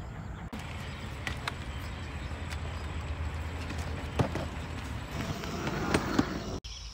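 A small car rolling slowly along a concrete road, a low steady rumble with scattered clicks and a few sharp knocks. The sound is broken by abrupt cuts about half a second in and near the end.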